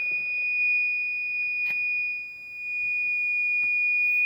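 A steady, shrill, high-pitched electronic beep tone, held without a break. It dips briefly in loudness a little past halfway, and two faint clicks come during it.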